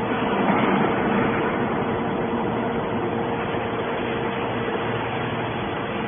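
Hydraulic scrap metal baler running: steady machine noise with a constant mid-pitched tone through it, a little louder about a second in.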